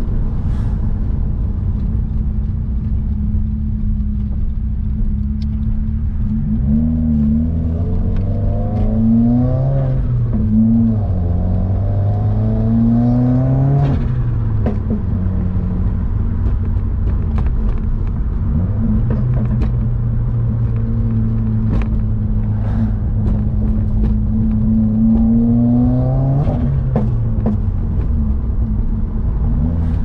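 2021 Subaru WRX's turbocharged flat-four engine heard from inside the cabin over steady road rumble, pulling through the gears. The engine note climbs in pitch in a few runs about a quarter of the way in and again toward the end, dropping back at each gear change.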